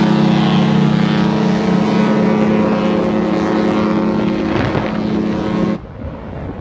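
Cruise ship's horn sounding one long, low blast that cuts off suddenly near the end.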